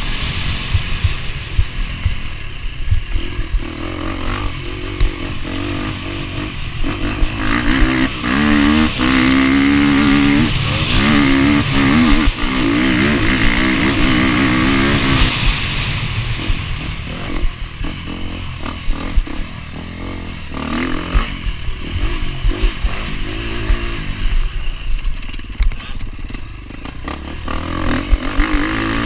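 KTM 250 EXC-F's single-cylinder four-stroke engine revving up and down as the bike accelerates and shifts, heard close up from a camera mounted on the bike, with scattered knocks from the bike running over rough dirt.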